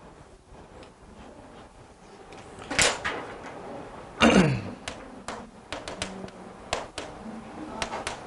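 Chalk tapping and scratching on a chalkboard as a word is written, heard as a run of quick sharp ticks over the last few seconds. Before that there is a sharp knock a little under three seconds in, then a loud, short scrape falling in pitch a little after four seconds.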